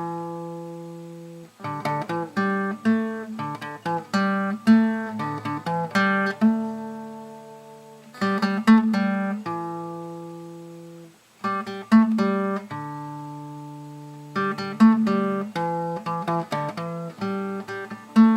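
Background music: acoustic guitar plucking a melody in short phrases, each note ringing out and fading.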